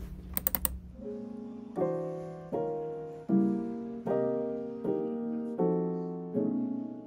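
Background piano music: soft, sustained chords struck about every three-quarters of a second, each fading away before the next, with a few quick clicks just after the start.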